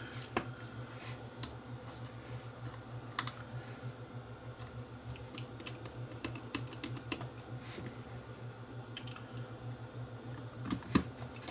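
Scattered small clicks and taps of a clear plastic cassette shell being handled as its two halves are fitted back together, with a louder click near the end as a screwdriver is set to the screws. A low steady hum runs underneath.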